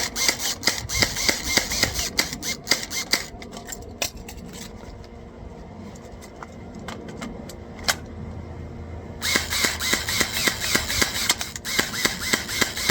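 Airsoft gun firing a rapid string of shots for about three and a half seconds, then a few seconds of scattered clicks and knocks while the magazine is swapped, then rapid firing again for the last four seconds.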